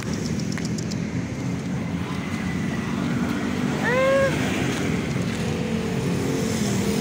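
Steady street traffic noise, with a cat giving one short meow, rising then falling in pitch, about four seconds in.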